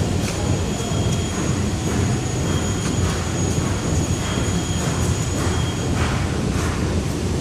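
A CNC automatic spring coiling machine for wire up to 6 mm, running: a steady heavy mechanical rumble with a thin high whine over it and short metallic scrapes about once a second.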